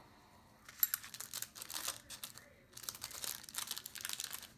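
Paper padded mailer crinkling and rustling under gloved hands as small pistol parts are picked up and handled on it, in two bouts of crackling, each about two seconds long.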